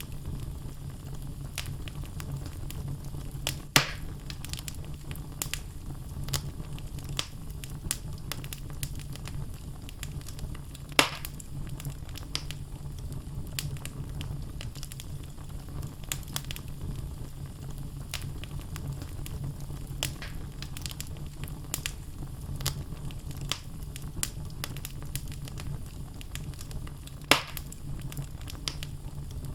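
Wood logs burning in a fireplace: a steady low rumble of flames with scattered crackles and three louder pops.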